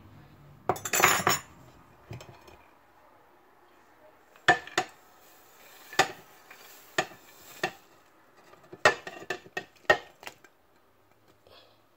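Ceramic crockery clinking as toppings are tipped off a plate into a ceramic bowl: a short scraping rustle about a second in, then a series of sharp separate clinks, about nine of them, in the middle and latter part.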